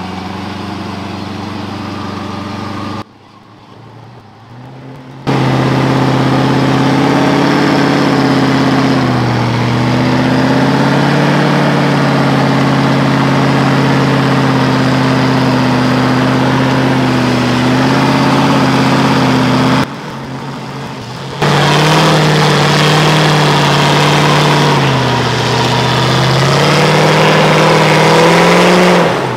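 V8 Land Rover Discovery crawling up a rocky climb on a winch line: a loud, steady, pitched mechanical drone of the driveline under load, wavering a little in pitch. It cuts out abruptly about three seconds in, comes back louder a couple of seconds later, and dips briefly again after about twenty seconds.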